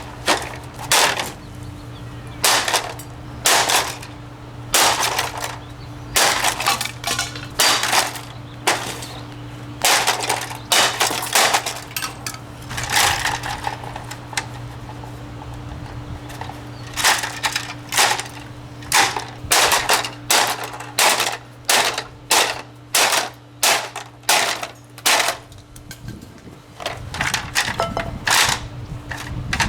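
An Endless Breeze box fan being smashed: dozens of sharp blows in quick irregular runs, about one or two a second, with a short lull about halfway through. A steady low hum runs underneath.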